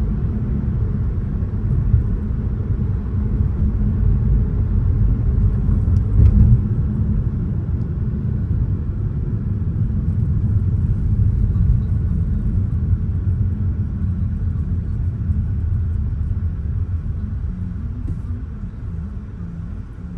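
Car cabin road noise from a moving car: a steady low rumble of tyres and engine that eases off near the end.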